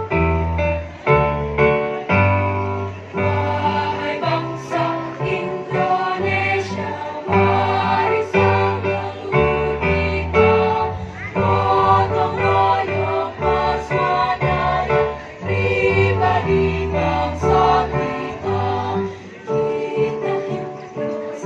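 Choir singing in parts, with a piano accompanying.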